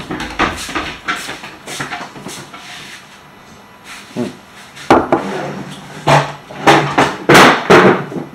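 Kitchen handling noises: a few light knocks as a cupboard is closed, then from about five seconds in a run of louder knocks and clatters of dishes and a utensil drawer being pulled open.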